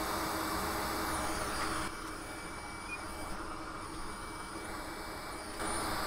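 Steady whooshing hiss of a small electric blower with a faint steady hum. It drops quieter about two seconds in and comes back up near the end.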